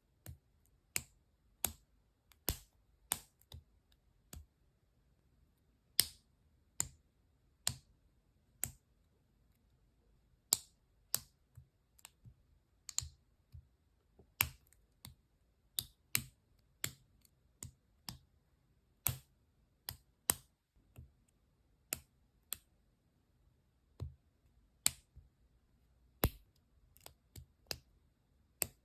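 LEGO bricks clicking as plastic pieces are pressed together and set down during a build: sharp, separate clicks at an uneven pace, roughly one or two a second, with short quiet gaps between.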